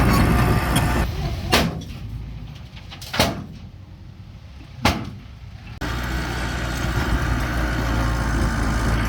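Bulldozer's diesel engine running steadily. It drops away abruptly for several seconds, during which three sharp knocks come about a second and a half apart, then the engine noise returns just as abruptly.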